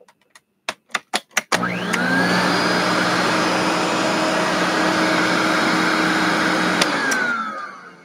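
Electrolux Epic 6500 SR canister vacuum motor, close to the microphone: a few clicks, then it switches on about a second and a half in, spins up fast and runs steadily, then switches off with a click near the end and winds down with a falling whine. The owner says the motor is starting to have bearing issues and to show signs of wear.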